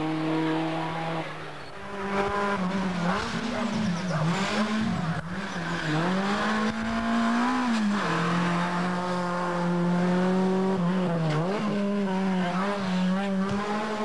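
Competition hatchback engine at full throttle on a twisting road course: after a quieter moment near the start, one car's engine comes on, its revs rising and falling sharply with each lift and gear change, then holds a high steady note as it comes past, with one brief lift a few seconds before the end.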